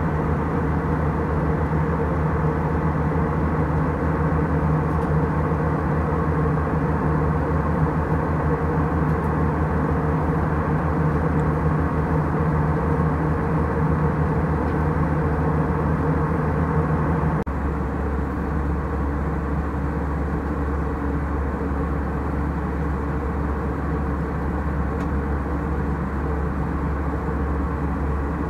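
Steady in-flight cabin noise of an Airbus A319: the drone of the jet engines and rushing airflow. About two-thirds of the way through it changes abruptly to a slightly quieter, deeper hum.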